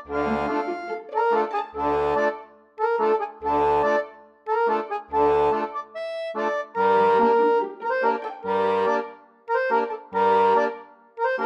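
Background music: an accordion-like melody of held notes over a low bass note that comes in at a steady beat, about every second and a half to two seconds.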